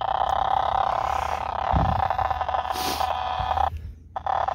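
Small speaker of a portable analog TV giving out a steady buzzing hiss of weak-signal sound while the antenna is being aimed. The sound cuts out for about half a second near the end as reception drops, then comes back. A couple of dull handling bumps in the middle.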